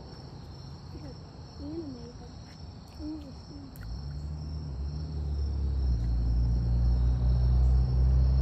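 Crickets trilling steadily. From about four seconds in, a low engine rumble comes in and grows steadily louder until it is the loudest sound, as of a vehicle approaching.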